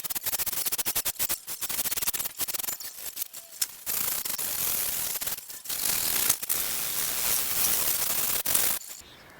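Hand tool scraping and rasping a surfboard's foam blank: rapid scratchy strokes at first, then a steadier scraping with a few short breaks, stopping near the end.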